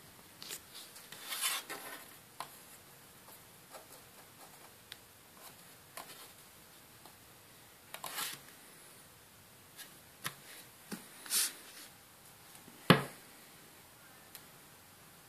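Quiet handling noises: a few brief rubbing swishes and scattered light clicks of a hand and a roller-skate wheel on a board, then one sharp knock near the end as a metal dumbbell is lifted.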